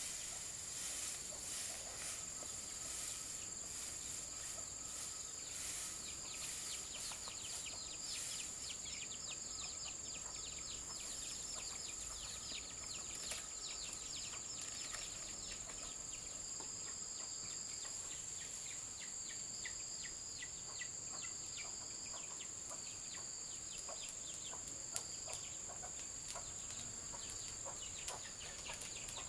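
Forest ambience: a steady high-pitched insect drone, with birds calling in quick falling chirps through the middle stretch.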